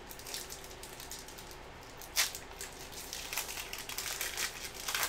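Foil trading-card pack wrapper crinkling and crackling as it is torn open by hand, with sharper crackles about two seconds in and again near the end.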